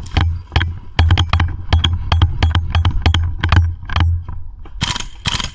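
A player moving fast across the airsoft field: heavy steps about twice a second under a busy run of clicks and rattles from gear and camera, with a few louder sharp noises near the end.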